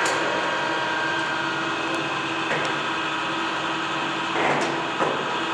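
Lodge & Shipley 21 x 98 heavy-duty engine lathe running under power, its headstock gearing and drive giving a steady, even hum. A few light clicks and a brief clatter about four seconds in break over the hum.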